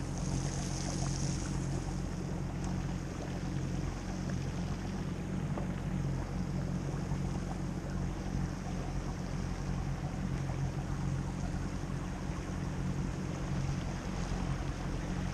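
Small boat's outboard motor running steadily at low speed, with wind on the microphone and river water around the hull.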